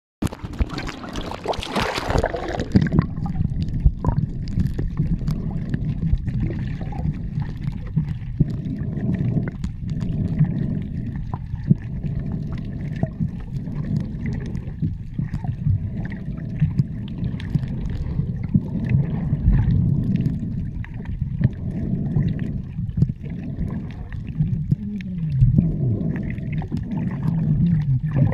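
Hissing splash of sea water for the first few seconds, then the muffled, low sound of being underwater in the sea, with scattered small clicks.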